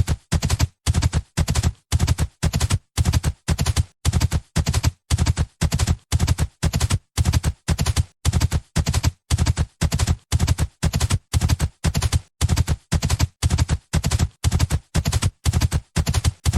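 Hooves of a galloping horse, clattering in a steady rhythm of grouped hoofbeats, close to two groups a second, with no pause or change in pace.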